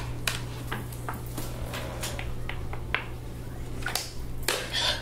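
Plastic water bottle handled and drunk from: scattered small clicks and crinkles, with a breath near the end, over a steady low hum.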